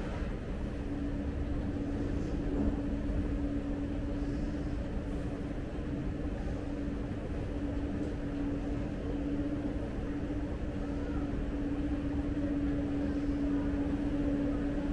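Escalator running: a steady mechanical hum holding one pitch over a low rumble.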